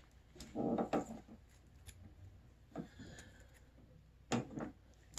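Quiet handling noise of a thin, flexible grip-heater element being worked by hand around a handlebar: a soft rub or rustle about a second in, then a few light taps and clicks.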